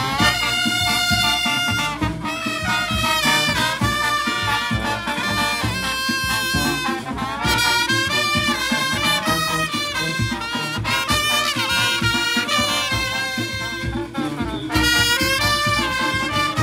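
Live Junkanoo band playing: brass horns carry a melody over a steady beat of drums and percussion.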